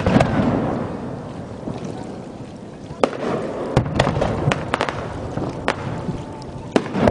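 Fireworks exploding overhead: a loud shell burst at the start followed by a long rolling rumble, then a run of sharp cracking bangs about three to six seconds in, and another burst near the end.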